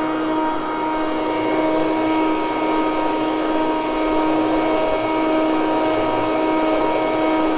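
Hoover Conquest wide-track commercial upright vacuum running steadily over carpet: a constant motor whine at an even pitch over a rushing of air.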